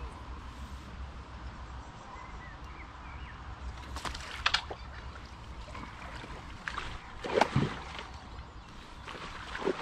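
A hooked fish splashing at the surface close to a landing net. There are a few sharp splashes about four seconds in, with the loudest bout at about seven and a half seconds and another near the end.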